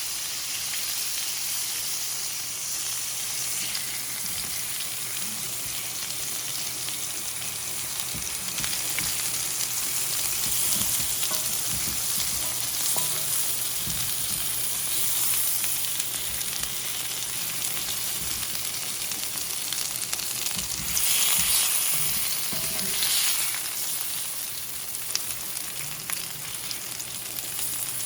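Sliced beets sizzling steadily in a pan as the added water steams off, with a few faint knocks of a utensil and a louder surge of sizzling about three quarters of the way through.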